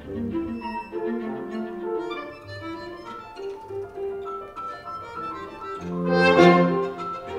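Recorded contemporary chamber-ensemble music played back over the room's loudspeakers: several lines of held and moving notes overlapping. It swells to a loud, bright accent about six seconds in, then drops back.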